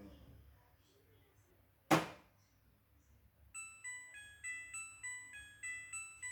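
Midea front-loading washing machine at the end of its cycle: a single loud click about two seconds in, then the machine's electronic melody of short beeps at changing pitches, its end-of-cycle tune.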